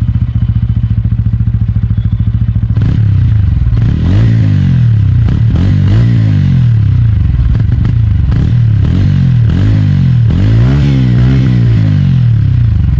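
TVS Ronin 225cc single-cylinder engine and exhaust, idling steadily for nearly three seconds, then revved again and again with quick throttle blips, each a rise and fall in pitch, a dozen or so in a row.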